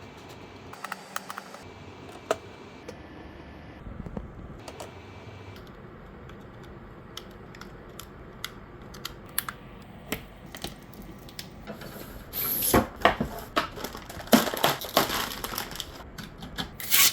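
Scattered sharp clicks and taps, thickening into a quick, denser run of clicks and rattling from about twelve seconds in.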